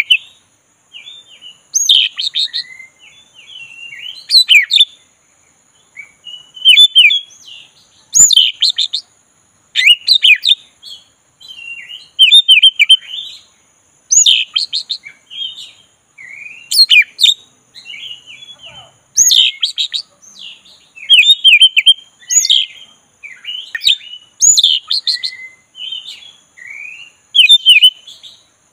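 Black-breasted oriental magpie-robin singing: a continuous string of short, varied whistled phrases, one every second or two.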